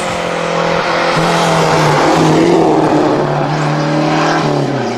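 A Renault 5 rally car driving flat out past on tarmac. Its engine note steps up and down several times as it comes through the bend, and the rush of engine and tyre noise is loudest as it passes about two seconds in, then fades as it pulls away.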